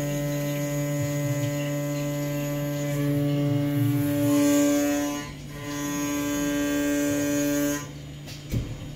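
CNC milling machine's motors running with a steady electric hum at one fixed pitch. It dips briefly a little past halfway, picks up again and stops near the end.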